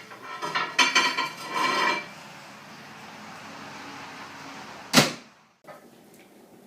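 Kitchen dishes and utensils clattering for about two seconds. Then a steady low hum, and one sharp knock about five seconds in.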